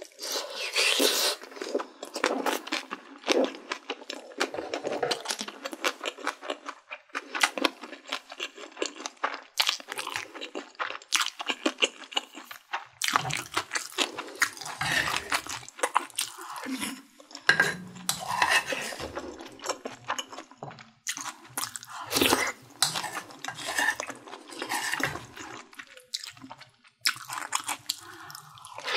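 Close-miked eating sounds: chewing mouthfuls of sundae-gukbap (pork and blood-sausage soup with rice), with many short clicks of wooden spoons against the dishes.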